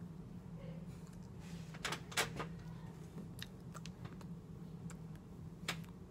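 Scattered light taps and clicks from hands striking and brushing against each other while signing, the sharpest about two seconds in, over a steady low hum.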